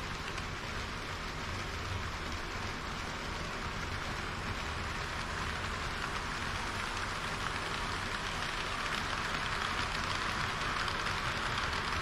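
Model trains rolling along plastic-roadbed track: a steady hiss of small metal wheels on the rails over a low rumble. It grows a little louder near the end as a train of tank wagons passes close by.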